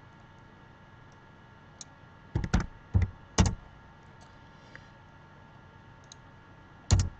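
Computer keyboard and mouse clicks: a quick cluster of four or five loud, sharp clicks about two and a half to three and a half seconds in, a single loud click near the end, and a few faint ticks in between.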